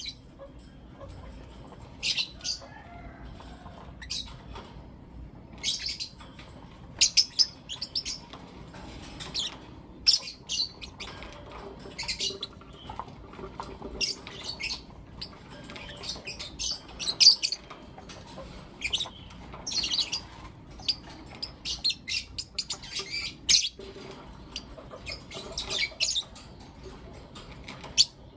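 Lovebirds chirping and calling: short, shrill high-pitched chirps that come in quick clusters every second or two.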